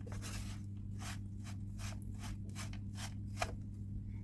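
Spoon or spatula scraping and stirring a crumbly mixture of dates, semolina, powdered grains and chopped nuts in a pan, in short regular strokes about two or three a second, over a steady low hum.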